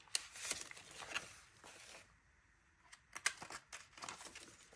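Paper banknotes rustling and a plastic binder pouch crinkling as cash is handled, with sharp clicks from the metal rings of a ring binder near the start. The handling comes in two spells, with a short lull in between.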